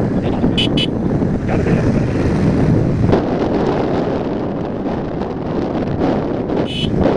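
Wind rushing over the microphone of a moving motorcycle, with a steady rumble of engine and road noise beneath. Brief high-pitched beeps come just under a second in and again near the end.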